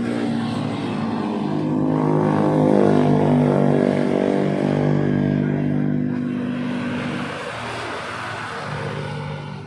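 40 hp Suzuki outboard motor running steadily, getting louder over the first few seconds and then easing off.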